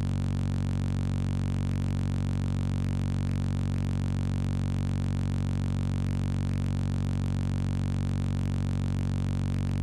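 A loud, steady low buzzing drone that holds one pitch without any change.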